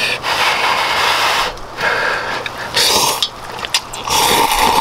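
Someone slurping hot ramen noodles: several noisy slurps of about a second each, with short gaps between.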